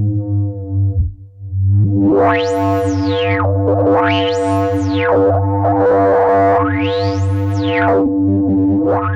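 Eowave Weather Drones 1.5 synth voice holding a steady low drone, briefly dipping about a second in. Then a bright, resonant sweep rises and falls over it again and again, about every two to three seconds.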